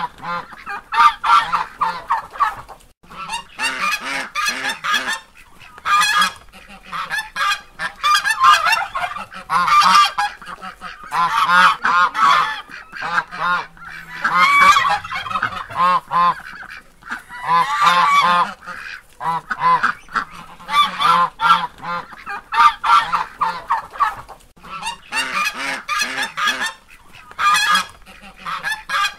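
Geese honking over and over in loud, overlapping bouts of a few seconds, with short pauses between.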